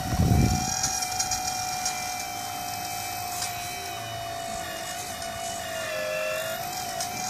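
Hydraulic pump of a 1:14-scale RC Komatsu PC800 excavator model whining steadily as the boom and bucket move, its pitch dipping briefly about six seconds in. There is a low thump right at the start.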